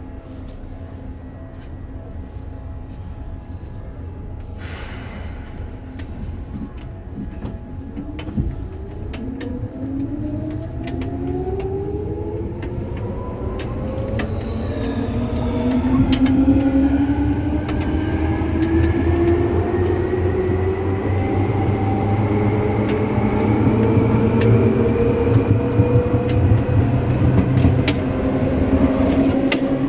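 Seibu 2000 series electric train heard from on board, pulling away: a short hiss about four seconds in, then from about eight seconds in the traction motor and gear whine starts and climbs steadily in pitch as the train picks up speed, over a growing low rumble with scattered rail clicks.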